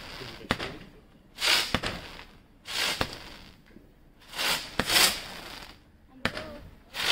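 Silver Spirals 16-shot firework cake firing shot after shot: sharp pops and hissing rushes of about half a second, roughly one every second or so.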